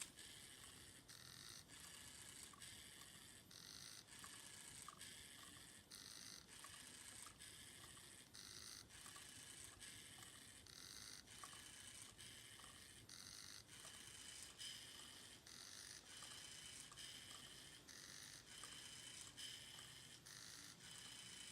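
Lego Mindstorms EV3 servo motors whining faintly in a string of short segments, one after another, as the robot arm moves, with light ticks between the moves.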